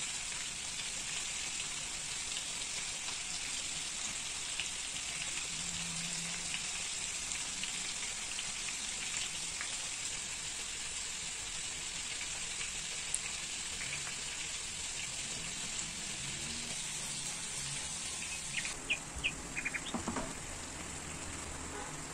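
Steady hiss with faint scattered crackles, like food sizzling. Near the end the hiss cuts off and a few light clicks and knocks follow.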